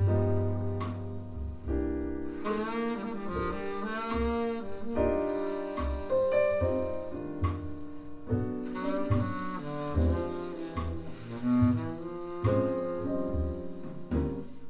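Small-group jazz played back through Bowers & Wilkins 706 S3 speakers: a tenor saxophone melody over piano and plucked double bass notes, with light cymbal strokes.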